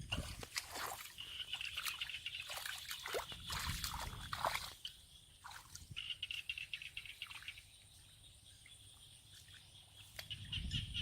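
Water splashing and trickling in many short bursts, busiest in the first half and quieter from about five seconds in.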